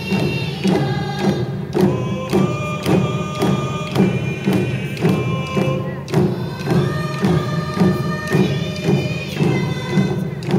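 A group of men and women singing a Cowlitz song together while beating single-headed frame hand drums with sticks in a steady, even beat.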